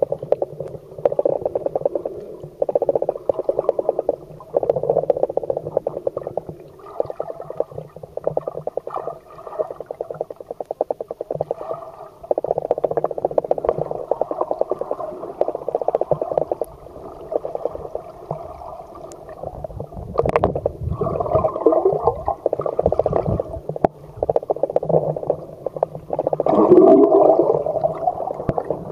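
Underwater noise picked up by a submerged camera: a fast, buzzing rattle that surges and fades every second or two, with a louder swooping sound near the end.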